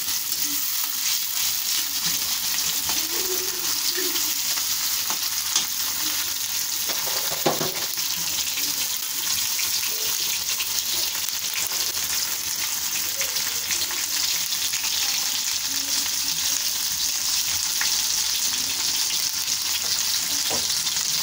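Raw chicken pieces sizzling in hot oil with onions and green chillies in a steel karai, stirred with a metal spatula. The sizzle is steady, and the spatula scrapes and gives a couple of sharper knocks against the pan.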